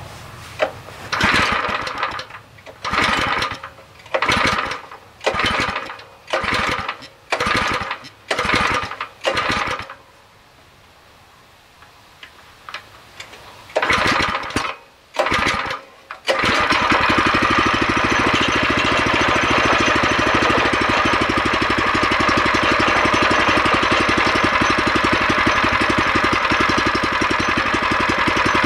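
Small gasoline engine on a kinetic log splitter being cranked in about eight short tries roughly a second apart, then two more after a pause. It catches about 16 seconds in and runs steadily: its first start in this machine.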